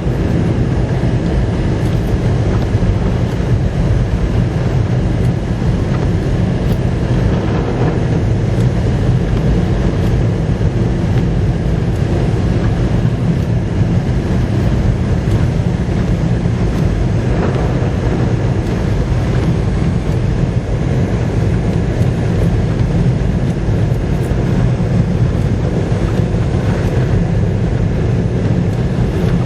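Storm wind blowing hard across the microphone, a loud, steady low rumble with no breaks.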